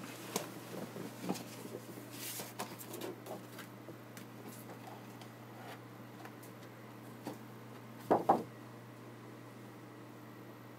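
Light clicks and knocks of things being handled on a desk, then a louder double knock about eight seconds in, over a steady low hum.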